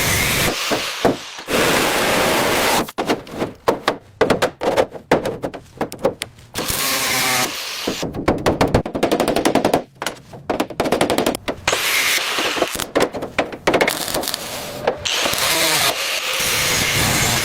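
Workshop air tools working on car body metal: stretches of steady hissing alternate with spells of rapid-fire hammering, many blows a second, with a few brief pauses between.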